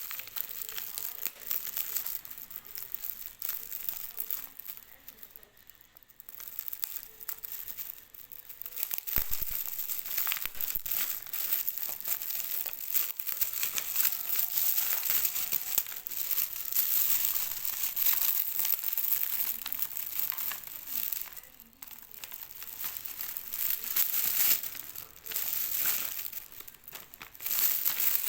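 Packaging crinkling as it is handled and unwrapped: a dense run of crackles with a few brief lulls.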